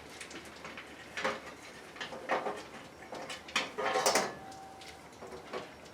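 Removable panels of a Lian Li Lancool Mesh II PC case being pulled off and handled: a few scattered clicks and scrapes, the loudest cluster about four seconds in.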